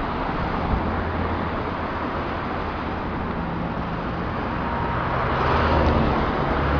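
Steady rushing rumble of distant traffic outdoors, growing a little louder about five seconds in.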